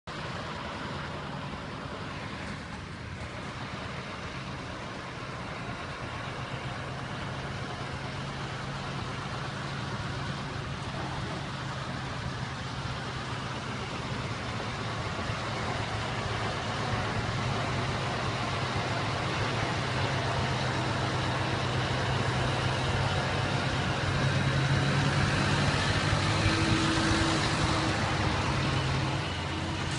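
Heavy articulated truck's engine running with road noise, a steady low hum that grows gradually louder and then eases off near the end.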